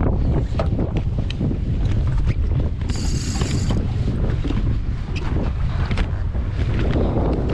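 Wind buffeting the microphone on a small boat at sea, with a steady low rumble and scattered knocks and clicks. A brief high-pitched whine sounds a little after three seconds in.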